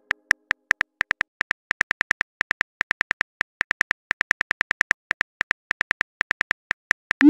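Phone-style virtual keyboard clicks in quick succession, about six a second, as a text message is typed out letter by letter. It ends with a short rising swoosh as the message is sent.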